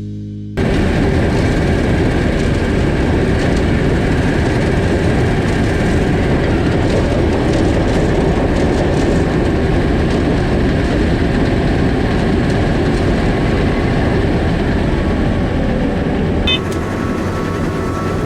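Combine harvester running steadily under load while harvesting soybeans, a loud, even mechanical din. Its tone shifts slightly near the end.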